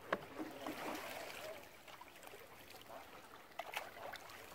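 Water lapping and trickling against a concrete dam wall and rocks at the water's edge, with a few sharp clicks near the start and again near the end.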